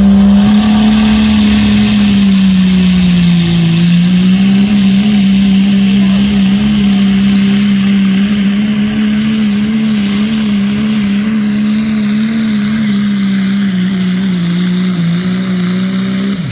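Diesel 4x4 pickup truck's engine held at high revs under full load while it drags a truck-pulling sled: one loud, steady drone. Its pitch sags briefly about three to four seconds in, then recovers and holds level.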